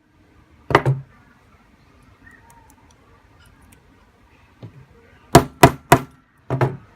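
Hammer blows on the Birch kit's metal setting punch, driving a press stud fastener together on its anvil plate. One blow about a second in, then three quick blows and a lighter one near the end.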